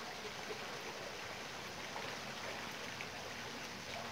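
Steady rushing, water-like noise, even throughout.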